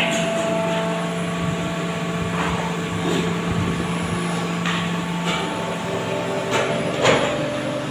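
Sumitomo injection moulding machine running with a steady mechanical hum made of several fixed tones, broken by a few short clicks or hisses; one low tone drops out about five seconds in.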